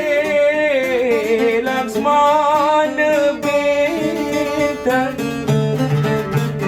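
A Malay song: a singer's wavering, ornamented vocal line over plucked string accompaniment.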